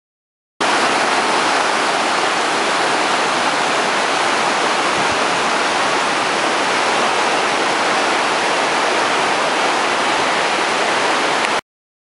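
Steady rush of whitewater sliding down a broad, sloping granite rock face in a cascade waterfall. It starts abruptly just after the beginning and cuts off abruptly just before the end.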